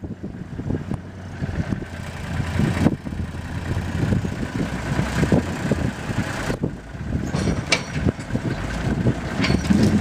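Pacific P16 logging truck's diesel engine running as the truck pulls its trailers slowly. The sound changes abruptly about three seconds in and again at about six and a half seconds.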